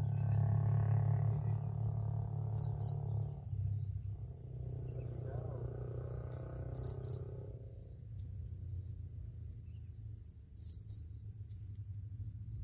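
Crickets chirping in short clusters of two or three high pulses, repeating about every four seconds, over a steady low hum that is loudest in the first few seconds.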